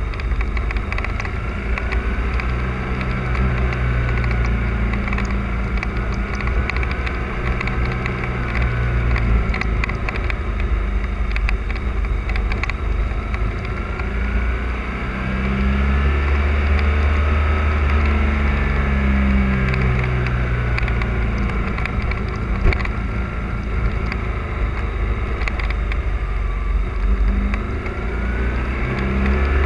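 Motorcycle engine running under way, its note rising and falling through the bends and getting a little louder about halfway through.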